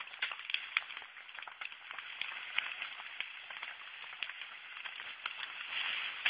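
Faint crackling hiss dotted with many small irregular clicks, with a slight swell of hiss near the end.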